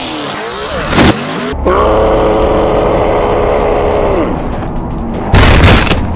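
A mud-bogging pickup truck crashing and rolling over: a loud impact about a second in and another about five and a half seconds in, with a steady high pitched tone held for nearly three seconds between them.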